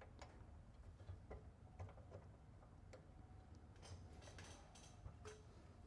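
Near silence with a low hum and scattered faint clicks and light taps, as bench equipment is handled and set out.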